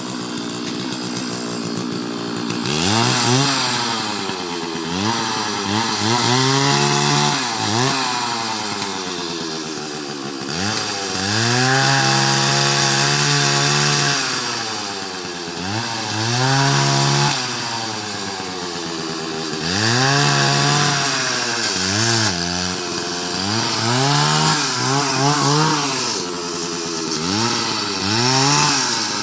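Two-stroke chainsaw revved up and down over and over, its pitch climbing and falling every second or two, with some revs held for a couple of seconds, as it cuts into a coconut.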